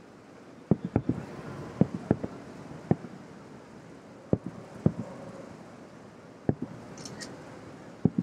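Aerial fireworks shells bursting about two miles away. About a dozen dull booms come at irregular intervals, several in quick twos and threes, with a faint hiss between them.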